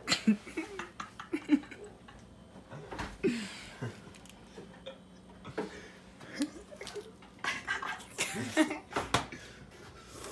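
Short bursts of laughter and wordless voice sounds, broken by a few sharp knocks and bumps as a phone camera is moved around.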